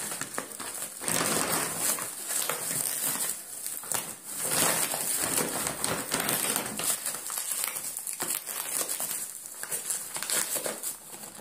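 Plastic bubble wrap around a large bag of dry dog food crinkling and crackling in irregular bursts as a small dog bites, chews and tugs at it, tearing the packaging.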